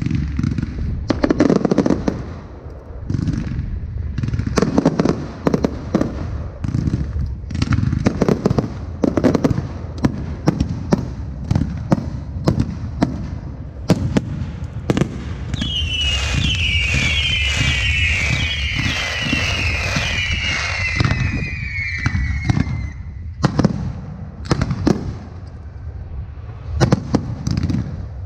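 Aerial fireworks going off in quick succession, with repeated booming bursts and bangs. About fifteen seconds in, a cluster of whistling fireworks sounds for about seven seconds, many whistles overlapping and falling in pitch, while the bursts keep coming.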